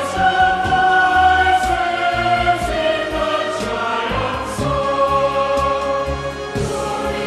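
Slow choral music, voices holding long sustained notes that change every couple of seconds.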